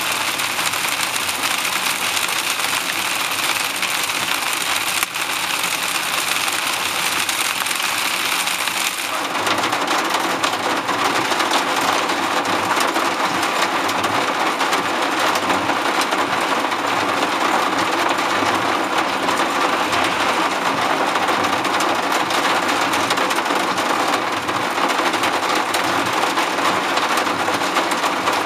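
Hail and heavy rain hitting the car's roof and windshield, heard from inside the cabin as a dense, continuous patter. It grows heavier about nine seconds in.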